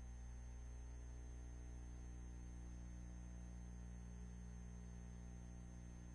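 Steady low electrical hum with a faint hiss and a thin, high, steady whine, unchanging throughout: the background noise of an old film's soundtrack transfer, with no other sound.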